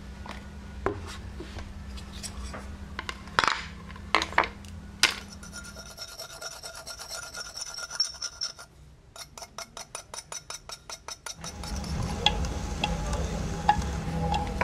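A wooden paddle slaps a lump of stoneware clay a few sharp times. Then a metal point scratches through the glaze on a pot, ending in quick even strokes of about three or four a second. Nearly twelve seconds in, a potter's wheel starts turning with a low rumble as a metal tool shaves the spinning clay.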